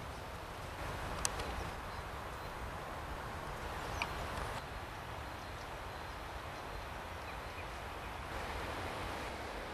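Outdoor ambience on a snowy riverbank: a steady hiss, broken by one sharp click about a second in and a brief high tick about four seconds in.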